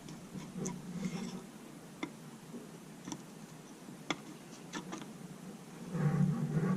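Scattered light clicks and ticks of a screwdriver working the water pump housing screws out of a 1957 Johnson Seahorse 3 hp outboard's lower unit, the screws coming out without a fight.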